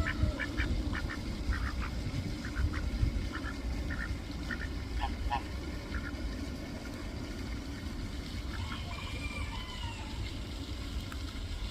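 Ducks quacking: many short calls in the first half, then a longer drawn-out call near the end, over a steady low rumble.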